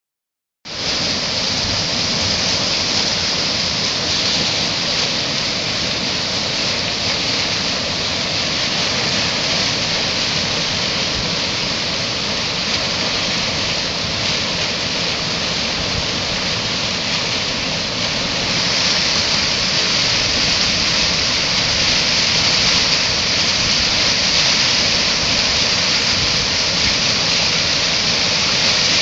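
River in flood pouring over a mill dam and churning through whitewater rapids below it: a loud, steady rush of water.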